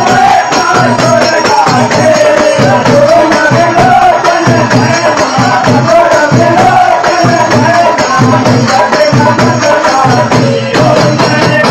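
Men singing a Hindu devotional song (aarti) through a microphone and loudspeaker, a wavering lead melody over steady rhythmic percussion.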